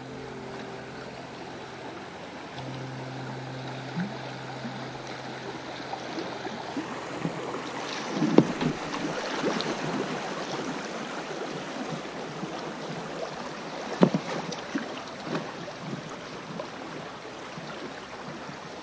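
Fast river current rippling and splashing around an inflatable boat as it runs through broken water, with sharp splashes against the hull, the loudest about eight and fourteen seconds in.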